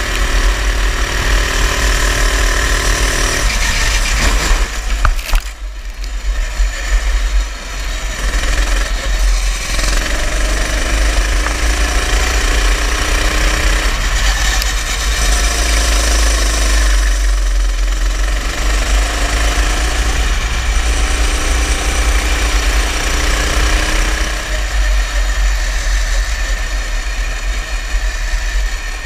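A go-kart's small engine runs continuously, its pitch rising and falling as the throttle opens and closes, with two clear dips where it slows. A heavy low rumble sits under it.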